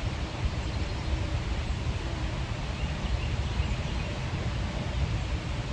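Steady background noise: a low, flickering rumble with a hiss above it.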